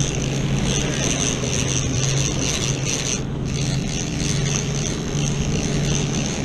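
Boat engine running steadily under way, a low steady hum beneath wind and water rushing past the hull.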